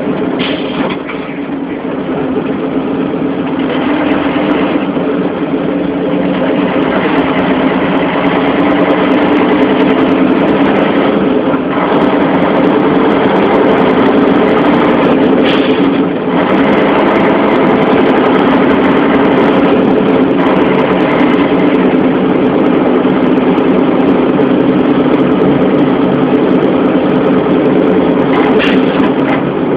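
Heavy engine of a grain-hauling vehicle running steadily under way. It dips briefly about a second in and then builds back up, with a few faint clicks over the hum.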